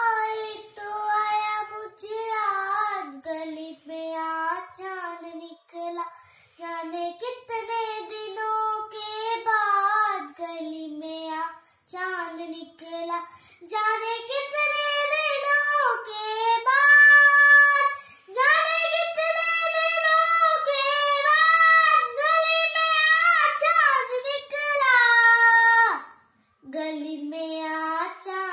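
A young girl singing solo and unaccompanied, a Hindi film-song melody with gliding, held notes. She grows louder with longer sustained notes about halfway through and pauses briefly near the end.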